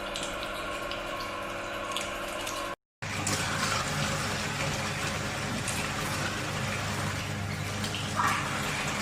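Electric meat grinder running steadily with a motor hum. There is a brief cut to silence about three seconds in, after which the running sound is noisier and rougher.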